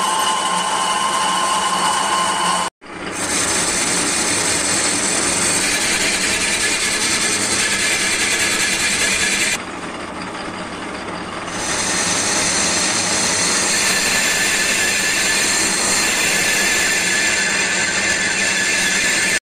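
Metal lathe cutting a spinning metal workpiece: the tool bit scraping the metal gives a dense hiss with steady high-pitched whining tones. It cuts off abruptly for an instant about three seconds in. Near the middle the high part fades for a couple of seconds, then the cutting sound comes back as loud as before.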